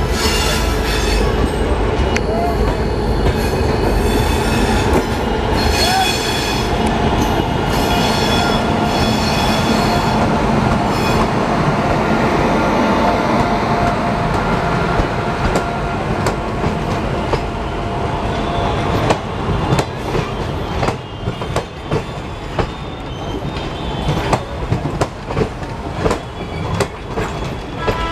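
A passenger train hauled by a WAP-7 electric locomotive rolling past close by, its coach wheels running on the rails. In the last third the sound turns less even, with sharp clicks of wheels over rail joints.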